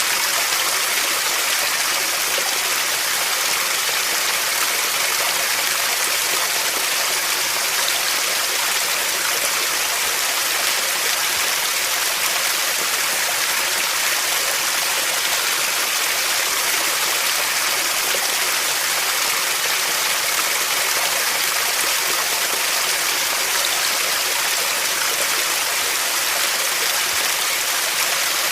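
Running water rushing steadily and without a break, a bright even hiss with little low rumble.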